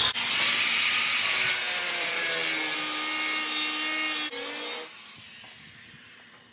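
Cut-off wheel slicing through the sheet-metal overlap of a welded-in windshield-channel patch, to open a gap for welding. It runs for about five seconds with a high whine whose pitch drops under load, then is let off and spins down.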